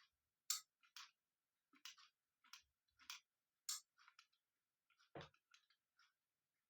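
Faint, sharp clicks and taps of small plastic parts being handled, about a dozen at uneven intervals, with near silence between them.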